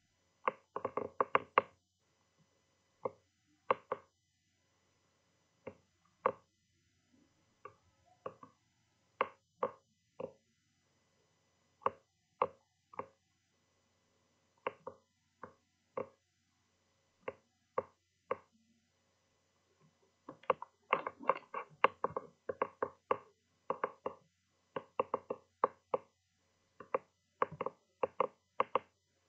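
Irregular sharp knocks and taps, some single and some in quick runs, with short silences between them; they come thickest in the last third.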